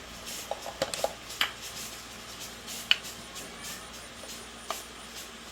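Light metallic clinks and taps of tools and motorbike parts being handled during repair work: a quick cluster about a second in, a sharper single clink about three seconds in and a small one near the end, over a faint steady hiss.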